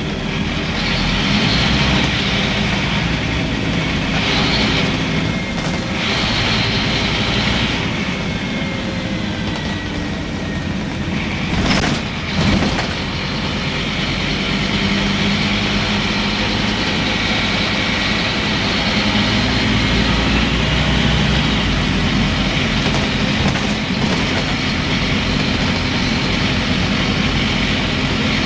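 Scania N230UB single-deck bus heard from inside the saloon while under way: its diesel engine runs continuously over road noise and body rattles, its note shifting as it goes. Two sharp bangs come about twelve seconds in.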